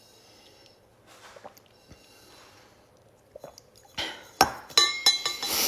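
Faint sounds of drinking water through a straw, then from about four seconds in a ceramic mug clinking and knocking sharply several times with a ringing tone, as when it is handled and set down on a hard surface.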